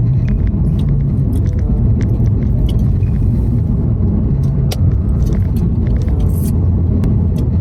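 Steady low road and engine rumble inside the cabin of a moving four-cylinder car, with a few light clicks and taps, one sharper about five seconds in.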